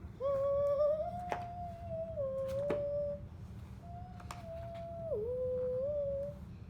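A child humming two long, held phrases with small steps in pitch, with a few light clicks in between.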